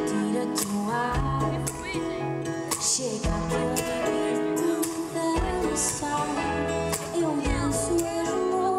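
Live band performing a pop ballad: a woman sings lead through a microphone over acoustic guitar, bass and a full band, with cymbal-like hits at intervals.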